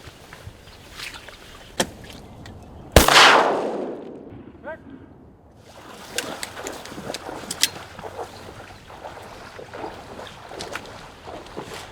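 A single loud shotgun shot about three seconds in, ringing out and fading over about a second, among a few lighter sharp clicks.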